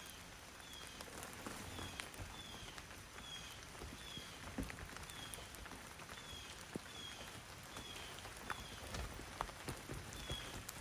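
Light rain falling, a soft steady hiss with scattered drop taps, under a short, high, falling chirp repeated about once a second.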